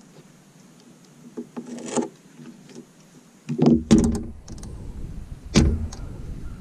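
Hands working a rubber mat strip into a window frame on a table: soft rustles and scrapes, then loud knocks and rattles of the frame about three and a half to four seconds in and again near five and a half seconds, over a low rumble.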